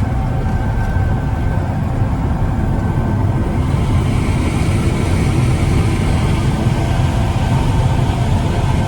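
Challenger 560C combine harvesting corn: a steady, loud low engine rumble with a constant whine over it, and a brighter hiss that swells from about halfway through.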